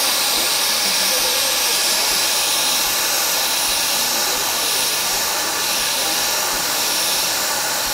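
1906 Jonathan Wheeler steam engine hissing steadily with escaping steam.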